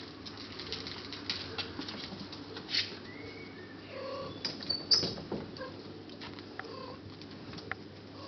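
Bengal kittens playing: scrabbling paws and scattered light clicks and knocks, the loudest knock about five seconds in.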